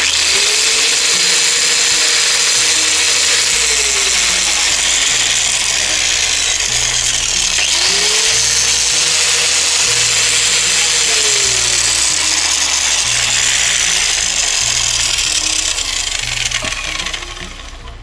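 Angle grinder running very noisily, its pitch rising, holding and falling twice, then stopping near the end. The excess noise and heavy vibration come from large play in the grinder, which the owner sets out to fix by servicing the gearbox.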